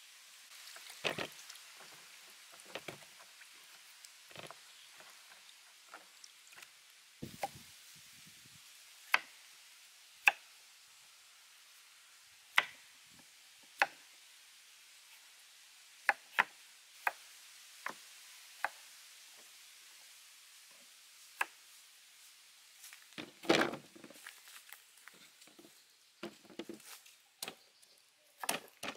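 Kitchen knives cutting carrots and other vegetables on wooden chopping boards: irregular sharp knocks of the blade on the board, one every second or two. There is a heavier knock about three-quarters through, and the knocks come quicker near the end.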